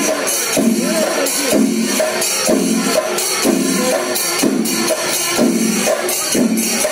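Music with a steady beat, a phrase repeating about once a second over a continuous bright high jingle.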